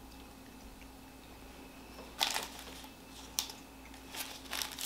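Quiet at first, then a plastic candy wrapper crinkling and rustling in short bursts from about two seconds in, with one sharp crackle in the middle.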